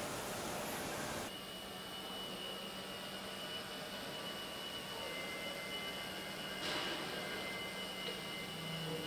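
Car assembly plant floor ambience: a steady high electronic tone and a low hum over a faint machinery hiss. The hiss is louder for the first second, then drops suddenly. A second, lower tone joins about halfway, and there is a brief burst of noise about two-thirds of the way through.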